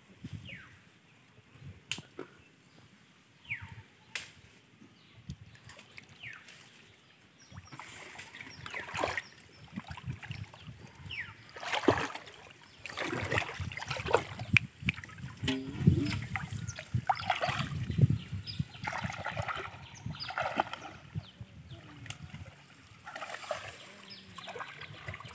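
Shallow water splashing and sloshing as a person wades and works among the water plants: a few faint clicks at first, then irregular splashes from about a third of the way in, heaviest in the middle.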